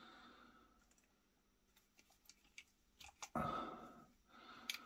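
Antique revolver's action being worked by hand: a few faint metallic clicks, a short stretch of handling noise about three and a half seconds in, and a sharper click near the end as the hammer is cocked and let down.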